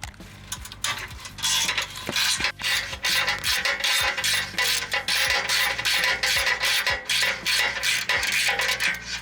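Hand ratchet wrench clicking in quick runs of strokes as exhaust bolts are undone, starting about a second and a half in.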